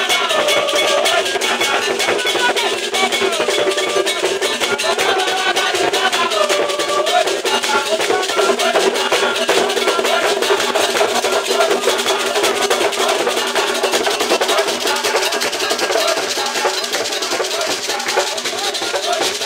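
Ghanaian traditional drum ensemble playing a steady, fast dance rhythm on hand drums and gourd rattles, with group singing over it that is clearest in the first half.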